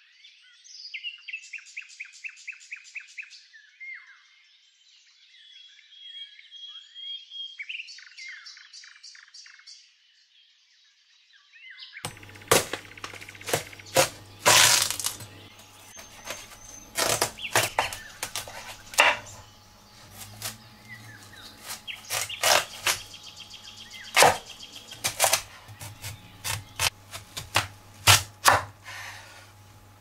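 Birds singing, with repeated trills and chirps, for about the first ten seconds. Then a kitchen knife slices a watermelon into wedges on a wooden cutting board, making loud, sharp cracks and knocks as the blade goes through the rind and meets the board, over a low steady hum.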